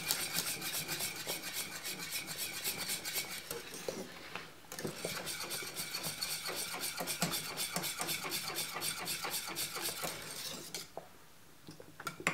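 Metal balloon whisk beating thick cornmeal porridge in a stainless steel pot: rapid, rhythmic scraping and clinking of the wires against the pot. It breaks off briefly about four seconds in, then stops about eleven seconds in.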